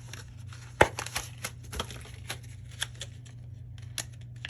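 Small clicks, taps and scratches from tools and parts being handled while the old battery is taken out of an opened iPhone 12 Pro, with one sharper click about a second in, over a steady low hum.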